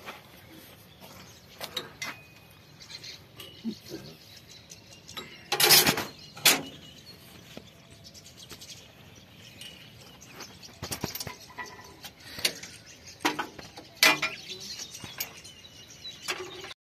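Steel spanners working on a tractor's hydraulic lift control linkage: scattered metallic clinks and knocks. There is a loud clank about six seconds in, and several more between eleven and fourteen seconds.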